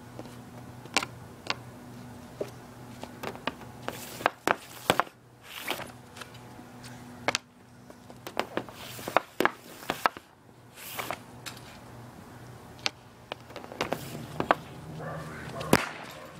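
Hockey shots with an Easton RS II composite stick off a synthetic shooting pad: the blade slaps and slides across the pad and the puck cracks off the stick. Irregular sharp knocks come every second or so, some with a short swish.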